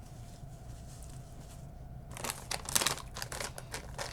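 A plastic chip bag crinkling as it is picked up and handled, starting about halfway through as a dense run of sharp crackles, over a steady low hum.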